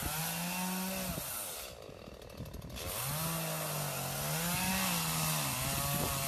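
Petrol chainsaw running as it cuts into fallen tree branches, its engine revving up and down. It drops to a lower, quieter note about a second in and picks back up about three seconds in.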